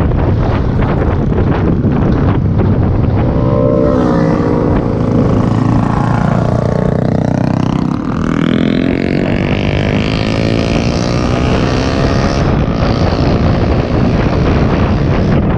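Wind rushing over the microphone of a moving motorcycle, with a motorcycle engine heard through the middle, its pitch falling and then climbing again.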